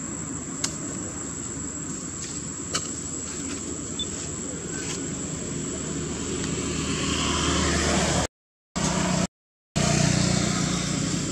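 Steady outdoor background noise: a low rumble with a faint steady high whine above it. A few faint clicks come in the first four seconds, the rumble grows louder from about six and a half seconds in, and the sound cuts out twice briefly near the end.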